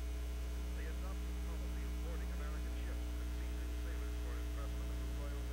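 Steady electrical mains hum on the soundtrack: a constant low buzz with evenly spaced overtones and no change in level.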